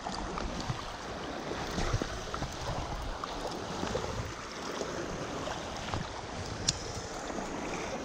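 Steady rush of flowing creek water.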